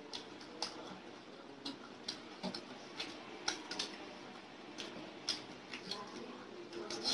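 Eating with the hands from steel plates: irregular light clicks and smacks of fingers mixing rice on the plates and of chewing, about two or three a second.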